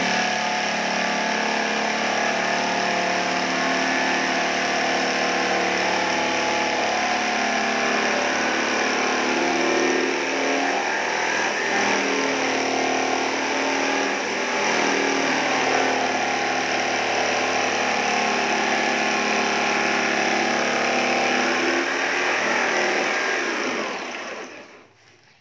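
Corded electric jigsaw cutting lengthwise through a plywood sheet: a steady motor whine over the rasp of the blade. It stops about a second before the end.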